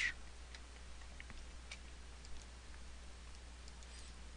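Faint, scattered clicks of a computer mouse and keyboard over a low steady hum.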